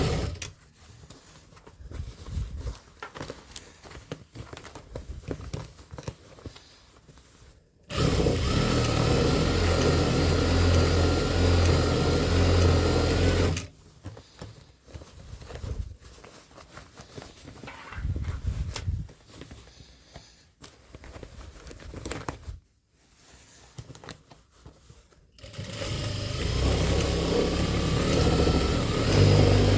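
Electric sewing machine running in two long, steady stretches, stitching denim. The first lasts about six seconds and the second starts near the end. Between them are faint, intermittent handling sounds.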